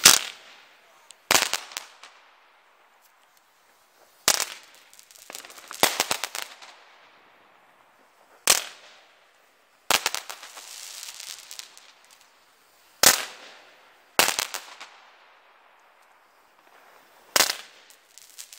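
Weco Metropolis 101-shot fireworks battery firing: about ten sharp bangs, some in quick clusters and others a second or a few seconds apart. Each bang is followed by the hiss and crackle of the burning stars.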